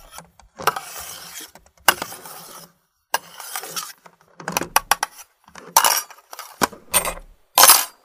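Kitchen crockery, glassware and cutlery clinking and clattering in about seven short, separate bursts with silences between them. The last burst, near the end, is the loudest.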